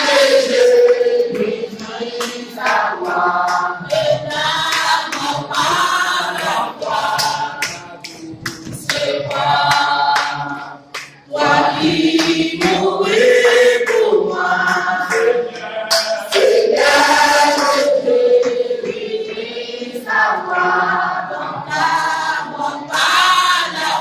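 A small mixed choir of men's and women's voices singing a hymn together.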